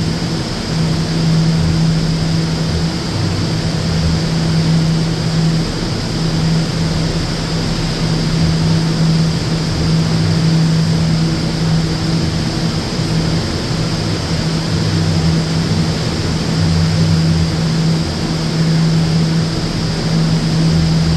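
R179 New York City Subway car's HVAC unit running: a steady low hum that drops out briefly every few seconds, over a constant rush of air with a faint high hiss.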